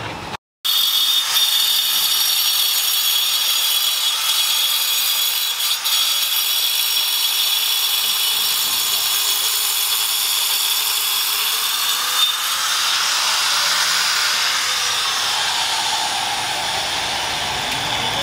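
Handheld angle grinder with a cutting disc cutting into a block of sandstone. It is a steady, high grinding whine whose pitch wavers slightly as the disc is loaded. It starts abruptly about half a second in.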